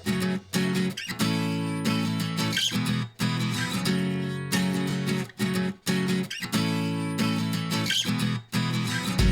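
Background music: a guitar-led instrumental with sustained chords, broken by short pauses.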